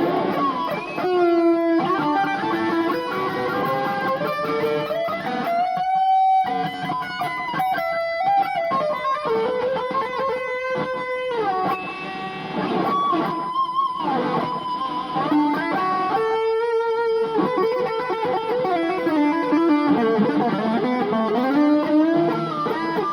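Electric guitar playing a rock and roll solo: single-note melodic runs with bent and sliding notes, recorded through an old phone's microphone.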